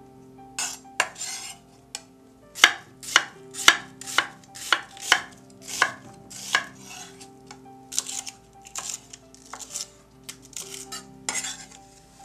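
Chef's knife slicing an onion on a wooden cutting board: a run of sharp knocks of the blade on the board, about two a second, growing softer and more irregular in the second half. Near the start come a few softer rustles as oyster mushrooms are pulled apart by hand.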